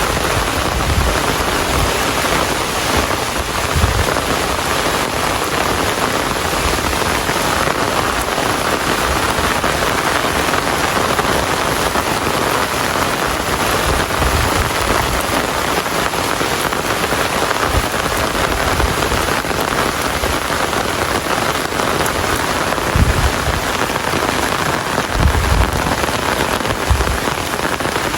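Steady heavy rain falling, a dense even hiss and patter of drops on surfaces. A few brief low rumbles rise under it, near the start and twice near the end.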